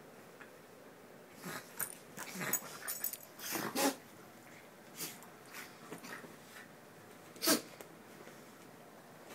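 A dog rolling and wriggling on its back on a bed, making a series of short, irregular noisy breaths and grunts over the rustle of the bedding. The sounds come thickest in the first half, and the loudest single one is about seven and a half seconds in.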